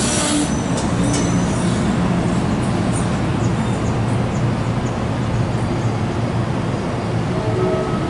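Train rolling along the rails: a steady, dense rumble of wheels and running gear, with a few faint, short high squeals in the first few seconds.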